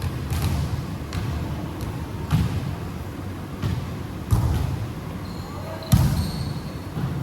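Basketball game on an indoor court: the ball bouncing in irregular thumps, with sneakers squeaking on the floor about six seconds in and voices in the background.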